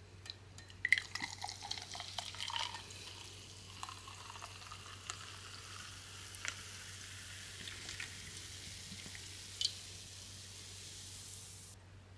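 Carbonated whisky highball poured from a can into a glass, fizzing with a steady hiss that stops suddenly near the end. A few sharp clinks of the glass and can in the first few seconds.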